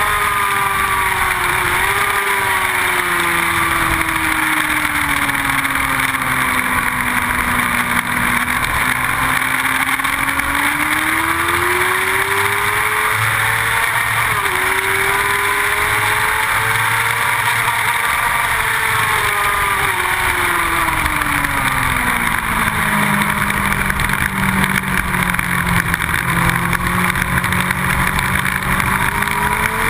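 Sport motorcycle engine heard from an onboard camera at speed, its pitch climbing and falling with the throttle through the corners, with brief dips at gear changes and a long low stretch after braking before it climbs again near the end. Heavy steady wind rush over the microphone runs under it.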